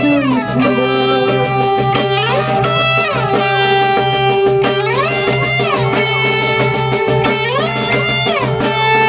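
Electric guitar played through an amplifier: long held notes that sweep up and down in pitch every couple of seconds, over a steady low note.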